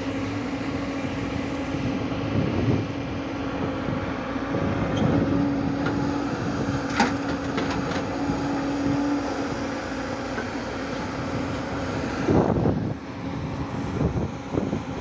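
Diesel engines of a Hyundai 140 crawler excavator and a Tata tipper truck running steadily as the excavator loads the tipper, a continuous engine drone. A single sharp clack comes about seven seconds in, and a louder rumble near the end.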